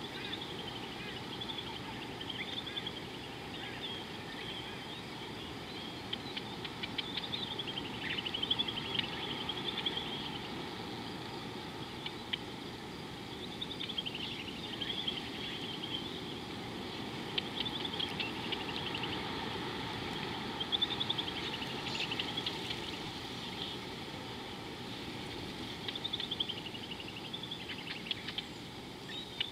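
Wild birds calling in short, wavering, chirpy phrases that come every few seconds, over a steady low outdoor background noise.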